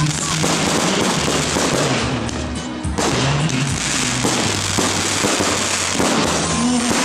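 Fireworks display bursting and crackling almost without pause, with music playing along underneath.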